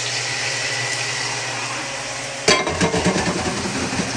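Raw diced chicken sizzling in hot oil in a nonstick pan, a steady hiss. About two and a half seconds in, a louder run of clattering and knocks from kitchen items being handled cuts in over the sizzle.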